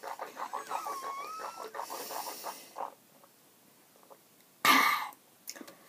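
A person's raspy, wheezy breathing and throat sounds for about three seconds, then a short, loud burst of breath about four and a half seconds in.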